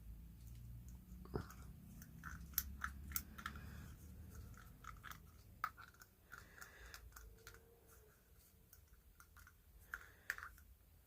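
Faint scraping, rubbing and scattered sharp clicks of hand work on an old flashlight's head, working grime out from around its glass lens.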